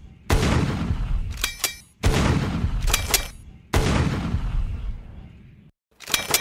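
Gunshot sound effects played one after another: three heavy blasts about a second and a half apart, each fading slowly, with light metallic clinks after the first two, then a shorter blast near the end.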